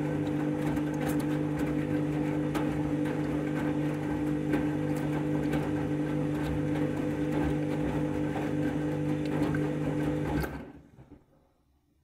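Candy front-loading washing machine tumbling a load on rinse: the drum motor hums steadily under water and wet laundry splashing in the drum. About ten and a half seconds in the drum stops, and the sound cuts off suddenly.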